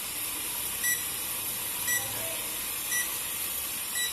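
Short high electronic beeps repeating about once a second, over a steady high hiss, from the toy camera drone set in flight.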